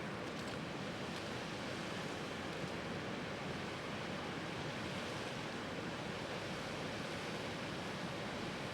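Bonfire burning: a steady rushing noise with a few faint crackles near the start.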